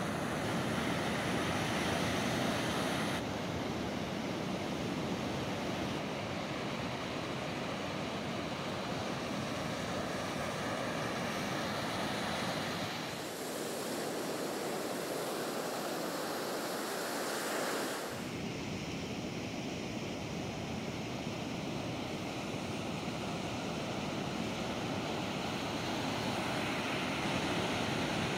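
Heavy ocean surf breaking and washing up a beach, a continuous rushing noise with a deep rumble. The sound changes abruptly a few times, and the low rumble drops out for about five seconds in the middle.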